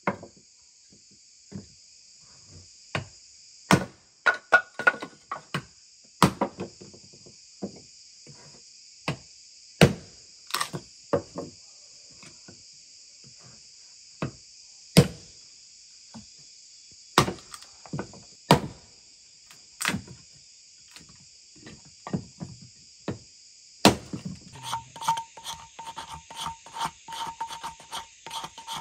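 A hatchet chopping and splitting a wooden log round into kindling sticks: single sharp knocks at uneven intervals. Near the end it gives way to a quick run of short scraping strokes as a knife shaves wood. A steady chirr of insects runs underneath.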